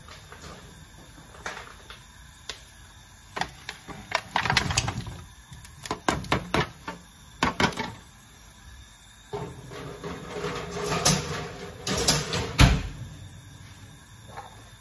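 Chicken pieces being tipped from a plate into a heavy pot of meat stock: a run of irregular knocks, clatters and plops, coming in clusters through the middle, with the loudest knocks near the end.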